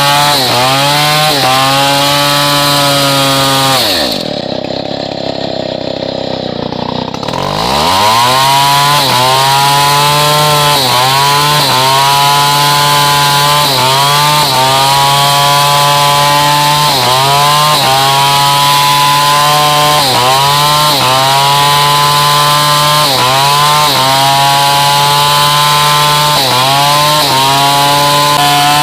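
Stihl 070 two-stroke chainsaw cutting hardwood at full throttle, its pitch dipping and recovering every second or two as the engine bogs under the load of the cut. About four seconds in it drops to idle for roughly three seconds, then revs back up and resumes cutting.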